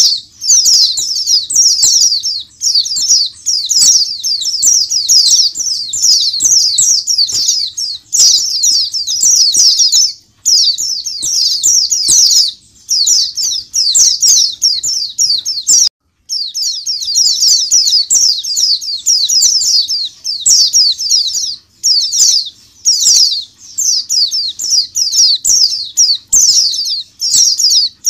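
A flock of white-eyes (pleci) in an aviary chattering and singing all at once: a dense, continuous stream of rapid high twittering from many birds, breaking off briefly about ten seconds in and again about sixteen seconds in.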